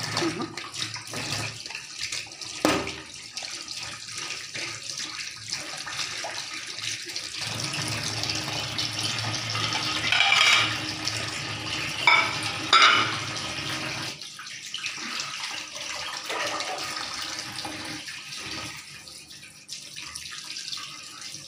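Tap water running into a stainless steel sink while catfish pieces are rinsed and handled under the stream. There is a sharp knock about three seconds in and louder bursts of splashing near the middle.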